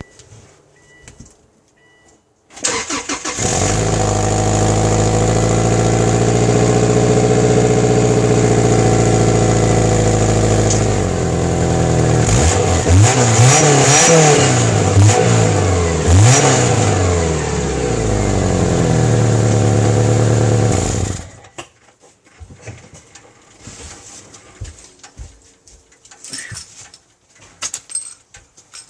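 Subaru Outback engine with an exhaust leak, started about three seconds in, idling, blipped up and down several times around the middle, then switched off; faint clicking and crackling follow.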